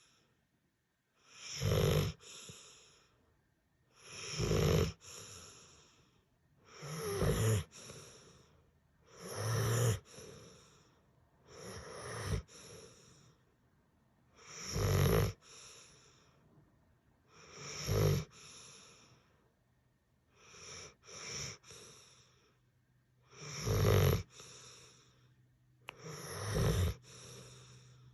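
A sleeper snoring steadily, with about ten snores at an even pace of roughly one every two and a half to three seconds. Each loud snore is followed by a softer second breath sound.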